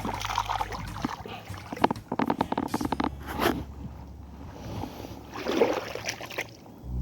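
A steady low engine hum with scattered clicks and knocks over it.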